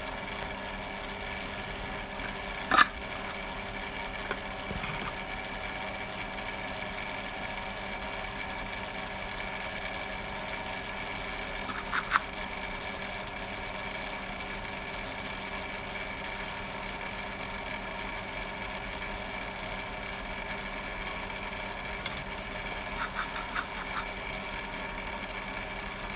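A steady machine hum made of several constant tones, with a few short clicks or taps: one about three seconds in, a pair near twelve seconds and a small cluster near the end.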